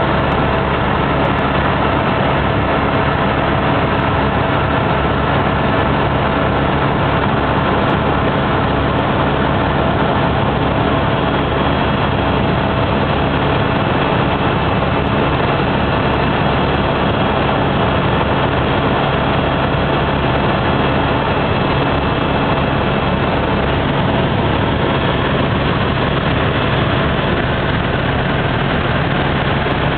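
Helicopter in flight heard from inside the cabin: steady, loud rotor and engine noise with a constant hum.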